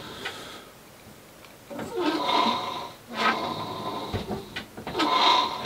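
Tillering rig squeaking rhythmically as a longbow is pulled down and let back up on the tillering tree, several pulls in a row, starting about two seconds in.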